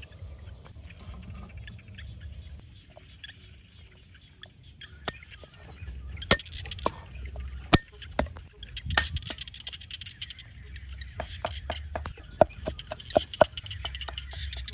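Steel cleaver chopping garlic and chilli on a wooden chopping board: a few single knocks, then a quicker run of chops, about three or four a second, in the later part.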